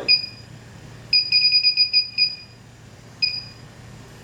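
Inficon D-TEK Select electronic refrigerant leak detector beeping in short two-tone alarm beeps, one at first, then a fast run of about eight in a second, then one more. The beeps are its alert for R-410A leaking from a coil held at about 10 psi.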